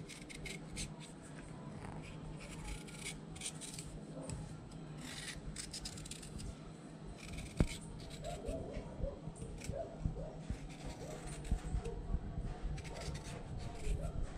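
Kitchen knife slicing a raw carrot into thin strips in the hand: a run of short, repeated cuts, with one louder knock about halfway through.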